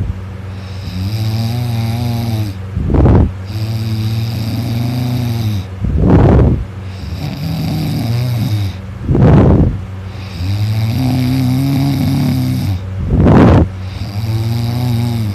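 A sleeping person snoring loudly in a regular rhythm of about one breath every three seconds. Each cycle has a drawn-out, lower pitched breath lasting about two seconds, then a short, much louder noisy snore, four times in all.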